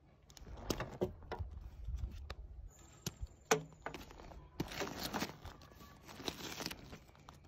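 Rustling and handling of a rolled canvas bell tent as it is pulled at and unrolled on wooden boards, with scattered small clicks and one sharp click about halfway through.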